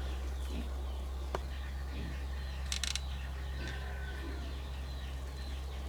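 Birds chirping over a steady low hum, with a single sharp click about one and a half seconds in and a brief hissing burst near the middle.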